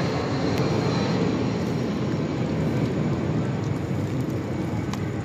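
A steady low rumbling noise, with a couple of light clicks as a metal spoon stirring thick pasta knocks against a steel pot, one about half a second in and one near the end.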